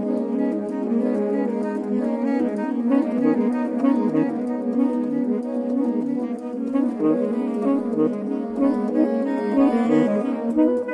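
Saxophone quartet of soprano, alto, tenor and baritone saxophones playing together: a low note held steady beneath shifting, repeating figures in the upper parts.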